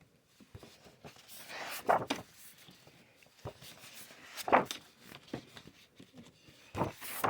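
Sheets of patterned scrapbook paper rustling and sliding as they are handled and shuffled, with louder swishes about two seconds in, midway, and near the end.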